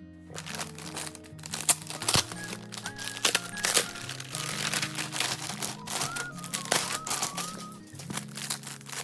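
Light background music with a whistled tune, over irregular crinkling and crackling of packaging being handled.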